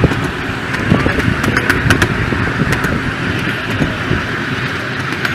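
7¼ inch gauge miniature steam locomotive, a GWR 38xx No. 3802, running with its passenger train, heard from a riding car. There is a steady rumble of the wheels on the track, scattered sharp clicks from the rails, and a hiss of steam.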